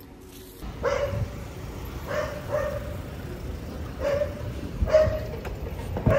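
A dog barking repeatedly, short barks coming in quick pairs every second or two.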